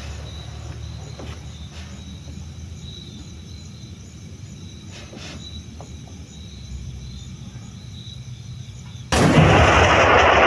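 Low, steady outdoor rumble, then about nine seconds in a sudden loud shot from a .40-calibre Summit-action muzzleloader, followed by loud noise that stays up.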